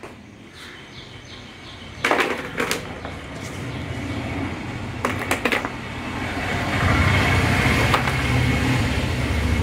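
Salted, chilli-coated mango slices being lifted out of a steel pot by hand and dropped onto a plastic tray, with sharp knocks about two seconds in and again around five seconds. A low rumble swells through the second half and is the loudest sound.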